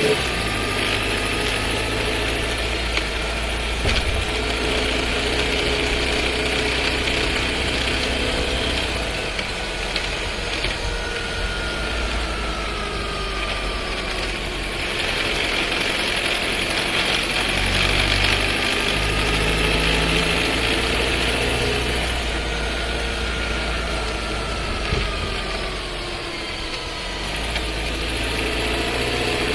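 Skoda Scala 1.5 TSI heard from inside the cabin while driving, with a rattle and vibration from its DQ200 seven-speed dry-clutch DSG transmission, which the owner treats as a fault. A faint whine rises and falls several times with the car's speed.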